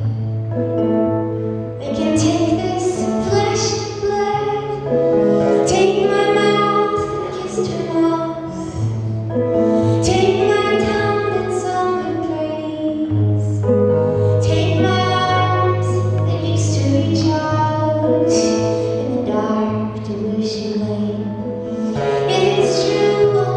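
A woman singing a folk song live, accompanying herself on an acoustic guitar.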